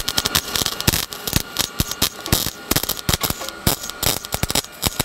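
Wire-feed welder arc crackling and spattering as a bead is run on a steel post, a rapid irregular crackle without a break.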